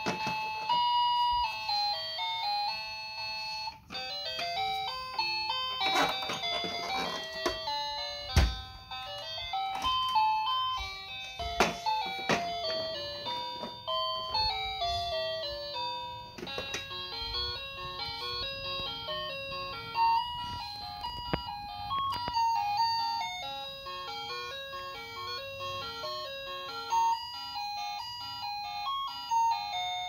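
Kiddieland Light and Sound Activity Farm Yard toy playing its electronic tunes: tinny, beeping melodies of single stepped notes, one tune giving way to another. A few short knocks sound along the way as its parts are pressed.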